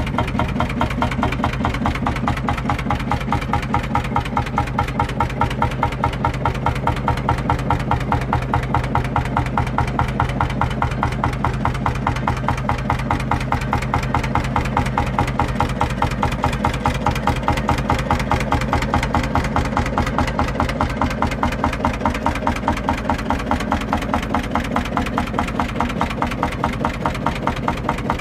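Field Marshall Series 2 tractor's single-cylinder two-stroke diesel engine idling, a steady, even rhythm of beats with no change in speed.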